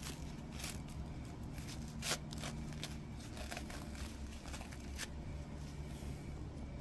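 Light rustling and a few sharp clicks from hands unwrapping and handling a packed item, over a low steady hum.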